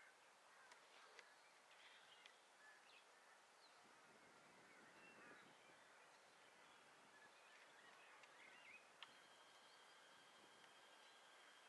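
Very faint woodland birds calling, scattered short chirps over a low hiss. About nine seconds in there is a click, then a faint steady high tone that holds.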